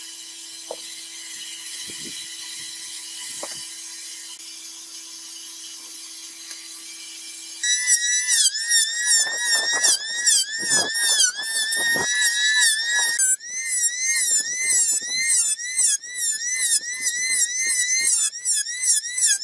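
A steady low hum with faint hiss and a few light knocks. About eight seconds in, an electric hand planer starts up with a loud high whine that wavers rapidly up and down in pitch as it cuts across the pine slat ends, with a brief dip partway through.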